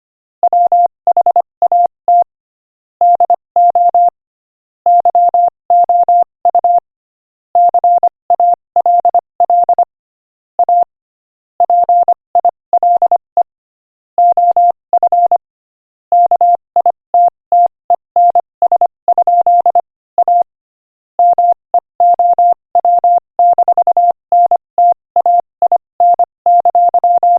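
Morse code sent at 25 words per minute as a single steady beep tone keyed on and off in dots and dashes, in runs broken by short pauses between words.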